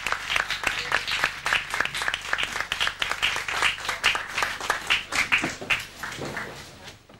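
Audience and panel applauding, many hands clapping; the applause thins out and dies away near the end.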